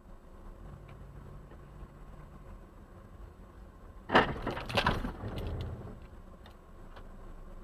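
Low rumble of a moving car, then a sudden crash about four seconds in, two heavy hits half a second apart followed by a few small clicks: a vehicle collision heard through a dash-cam microphone.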